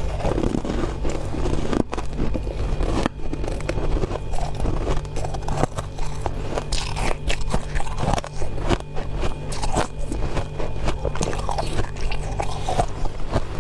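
Freezer frost being bitten and chewed close to the microphone, a dense run of irregular crisp crunches with a steady low hum underneath.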